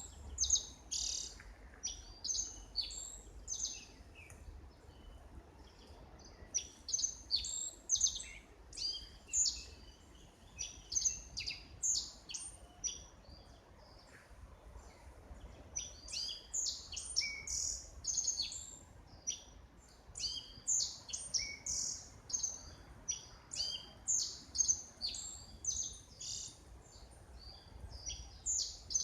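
Several small birds chirping and calling, a dense run of short, high-pitched notes in quick succession with brief lulls.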